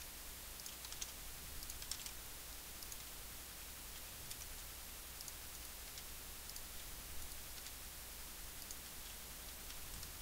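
Faint, scattered clicks of a computer keyboard and mouse, irregular and a few per second, over a steady background hiss and low hum.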